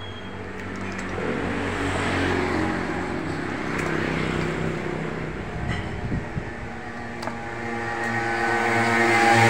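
Motor vehicles passing on the road, their engines running with pitch shifting as they go by. The traffic grows loudest near the end as one vehicle comes close.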